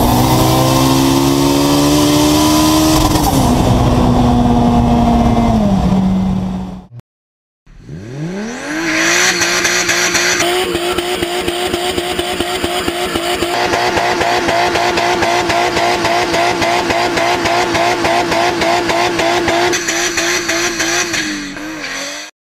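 A car engine pulling hard at high speed, heard from inside the cabin, its note holding and then falling from about three seconds in as the car slows. After a brief cut, a second car's engine rises in pitch and holds a steady high note for about twelve seconds until it cuts off.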